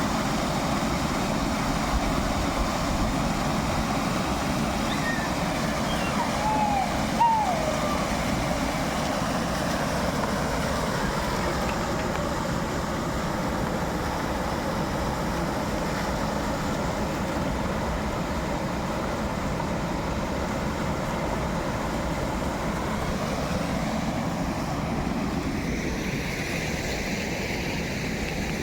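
Steady rush of flowing water, even and unbroken, with two short high chirps about seven seconds in.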